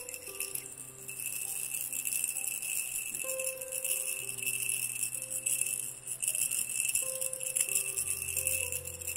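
A plastic baby rattle (khulkhula) shaken steadily by hand, a dense high rattling that grows louder about a second in, over soft held musical notes.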